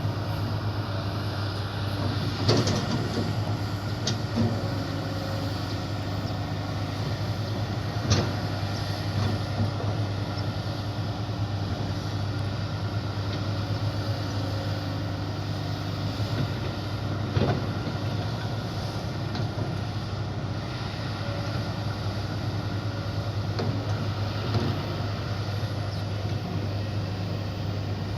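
Kobelco hydraulic excavator's diesel engine running at a steady drone, with a few sharp knocks scattered through it, the clearest about eight seconds in.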